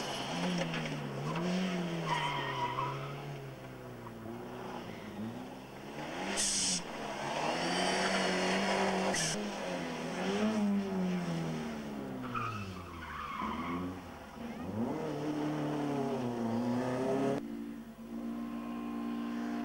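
Rally cars, among them a Ford Escort RS Cosworth, passing at speed one after another, with engines revving up and dropping back again and again through gear changes and tyre noise on the tarmac. There are two short sharp noises in the middle, and near the end a steadier engine note as the next car approaches.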